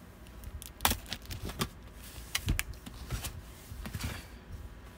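Cardboard packaging being handled and opened: irregular clicks, taps and scrapes, the sharpest about a second in.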